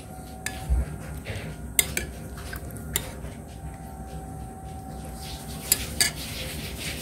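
Spoon clinking against a soup bowl: a few sharp, scattered clinks over a low steady hum.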